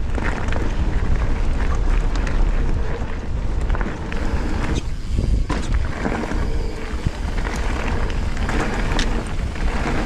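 Wind buffeting the microphone of a handlebar-mounted action camera as a mountain bike runs fast down a dirt trail, with tyres rolling and the bike clicking and rattling. There is a brief lull about halfway, then more knocks as the run continues.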